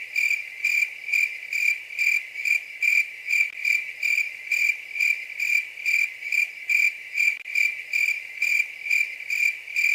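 Cricket chirping sound effect: a steady high chirp pulsing a little over twice a second, the "crickets" gag for an awkward silence after a joke falls flat.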